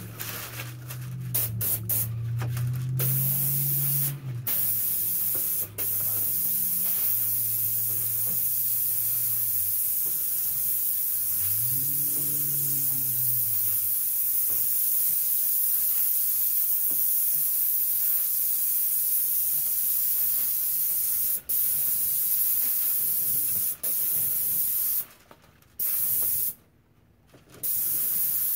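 Graco airless spray gun with a 310 fine-finish tip spraying paint at around 1300 psi: a steady loud hiss, broken by a few brief gaps where the trigger is let off between passes. Near the end it stops and starts a couple of times.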